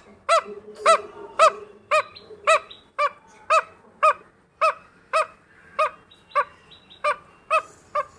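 A domestic fowl giving a steady run of short, identical calls, about two a second.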